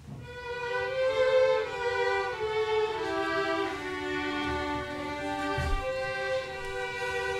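Slow music: a melody of long, held notes.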